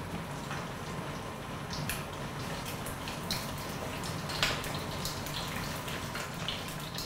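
Cornstarch-coated pork ribs deep-frying in a wok of hot oil: a steady sizzle with many sharp crackles and pops, the loudest about four and a half seconds in.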